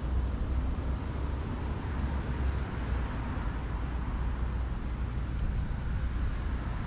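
Steady low rumble of distant road traffic, with a fainter hiss above it.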